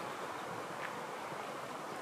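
Steady outdoor background noise, an even hiss with no distinct events, and a faint short high note a little under a second in.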